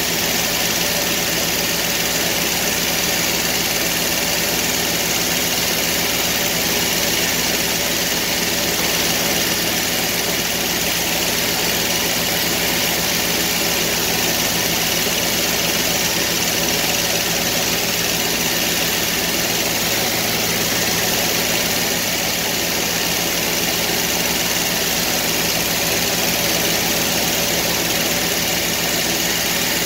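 Sawmill running steadily, its engine holding an even pitch with no revving or stopping throughout.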